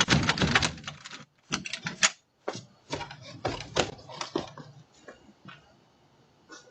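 A locked door being tried: quick rattling clicks and knocks from the handle and latch, in several clusters, dying away after about five seconds.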